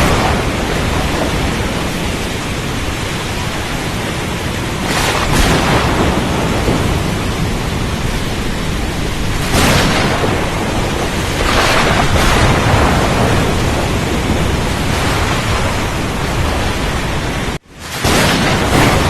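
Storm at sea: a continuous heavy roar of wind, rain and rough water, rumbling low down, with louder surging swells about five, nine and a half and eleven and a half seconds in. The sound cuts out for an instant near the end and comes straight back.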